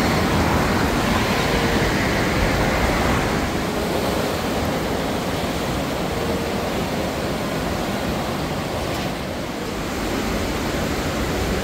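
Swollen river in flood rushing past: a steady, even rush of fast-flowing water.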